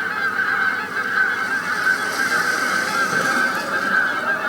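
Recorded birdsong playing from a CD through a portable stereo's speakers: a continuous, dense warbling of bird calls.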